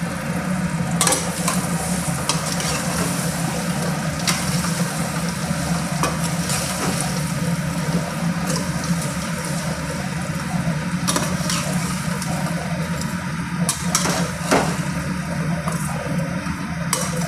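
Steel perforated skimmer stirring fried potatoes through spiced oil in a steel kadai, with sizzling and scattered sharp clinks of the spoon against the pan, over a steady low hum.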